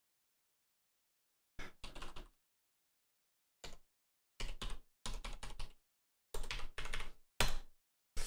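Computer keyboard typing in several short bursts of key clicks, starting about a second and a half in: a user name and password being entered at a login prompt.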